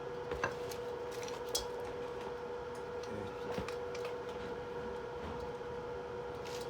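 A few light metallic clicks and taps, scattered a second or two apart, over a steady hum.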